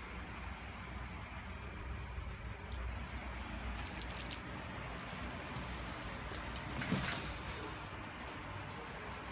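A small bell jingling on and off, three times, as a cat moves about, with a sharp click near the middle and a dull knock about seven seconds in.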